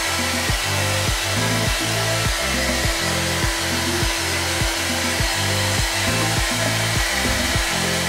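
Xiaomi Soocas H3S hair dryer blowing steadily as it dries hair, with background music underneath keeping a steady beat of about two a second.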